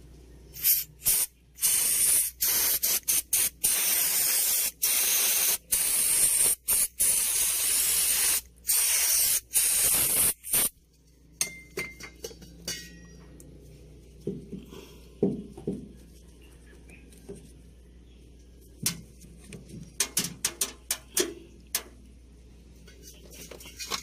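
Aerosol cleaner hissing in a run of short and longer bursts into a dump truck door lock mechanism, flushing out the built-up dirt that keeps the lock from latching. The spraying stops about eleven seconds in, followed by scattered light clicks and taps.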